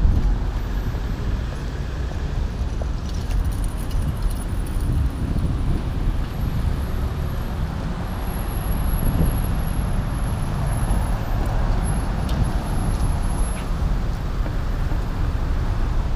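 City street traffic at an intersection: cars passing and idling in a steady, continuous wash of noise with a heavy low rumble.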